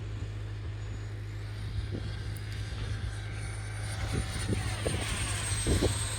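Small model jet turbine of a radio-controlled F-35B running with a thin high whine over a rushing noise; the whine rises slightly and then slowly falls as the sound grows louder. A few short low thumps come in the second half.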